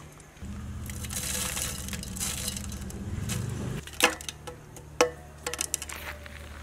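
Dried red chillies sizzling in hot sesame oil in a metal pot. About four seconds in, whole spices (bay leaves, cinnamon) are dropped in, giving a few sharp clicks and ticks.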